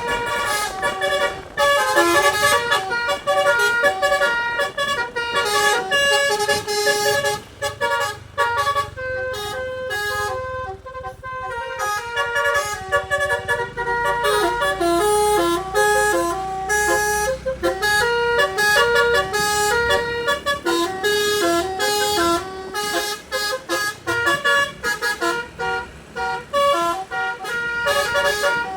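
DAV D3 multi-tone musical air horn on a bus playing 'telolet' tunes: fast runs of short stepped notes, sparser for a moment about ten seconds in. A low engine rumble sits underneath in the middle stretch.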